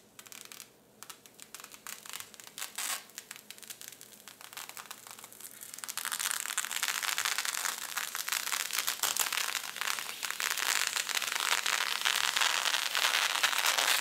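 Protective plastic film being peeled off a glass PC case side panel, crackling as it comes unstuck. Faint and broken at first, then louder and continuous from about halfway in as the film pulls away quickly.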